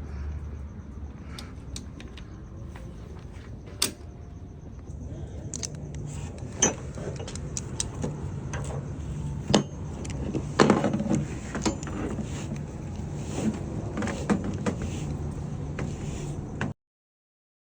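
Irregular clicks and metallic clinks from a Haul-Master 2-inch ratcheting tie-down being handled and worked, its ratchet and hooks clattering, over a steady low hum. The sound cuts off abruptly near the end.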